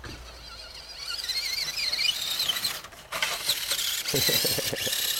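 Axial SCX10 RC crawler's 21-turn Traxxas brushed motor and gear drivetrain whining under throttle, the pitch wavering, louder from about a second in. Near the end a run of quick short revs.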